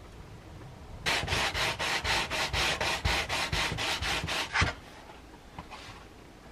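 Edge of a white plastic sheet sanded by hand on sandpaper, rapid back-and-forth strokes at about four to five a second for about three and a half seconds, starting about a second in.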